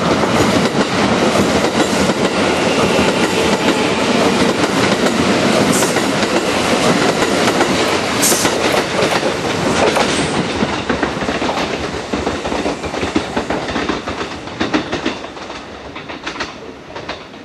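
Kintetsu 50000 series 'Shimakaze' electric express train running through a station at speed without stopping: a loud rush of the cars going by, with wheels clattering over the rail joints. The sound fades over the last several seconds as the train moves away, leaving separate wheel clicks.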